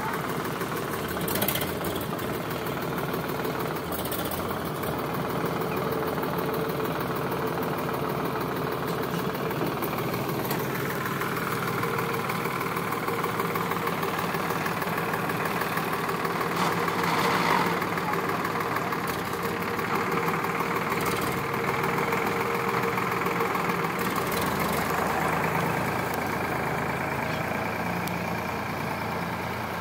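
Sonalika DI 745 tractor's three-cylinder diesel engine running steadily as the tractor drives with a tine cultivator. Its note changes about ten seconds in, and a few brief knocks stand out over it.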